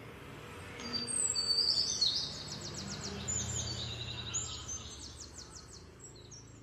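Birds chirping, a quick run of high chirps and trills that is loudest from about a second in to about four seconds in and then thins out, over steady outdoor background noise.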